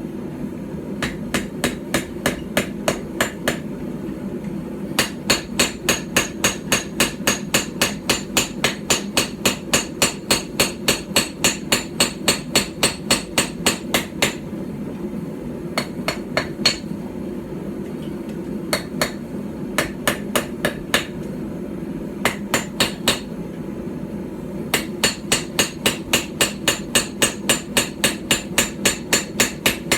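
Light hand hammer, about 12 ounces, striking a hot steel knife blank on a small stump anvil at about three blows a second, in runs broken by short pauses, each blow ringing. This is forging the blade of a small belt knife to correct its profile.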